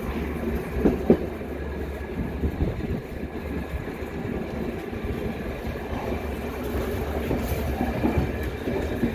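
Passenger train coach running on the track, heard from inside the coach: a steady low rumble of wheels on rails, with a couple of sharp knocks about a second in and lighter knocks scattered after.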